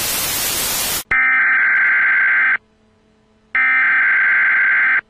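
TV static hiss that cuts off about a second in, followed by two long, steady electronic beeps of an emergency-broadcast-style alert tone, each about a second and a half long, with a pause between them.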